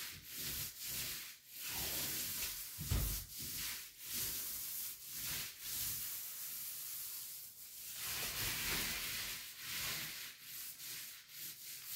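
Paint roller on an extension pole, freshly loaded with paint, rolling up and down a wall: a repeated rubbing hiss with each stroke. There is a dull knock about three seconds in.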